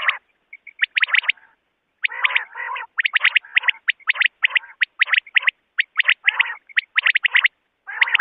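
Recorded calling of a male common quail (bater): quick phrases of three or four sharp whistled notes, repeated over and over, with lower, noisier notes between some phrases and a short break about one and a half seconds in.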